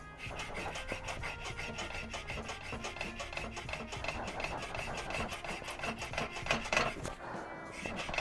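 Hand filing: a file worked in quick, even scraping strokes, which stop about seven seconds in.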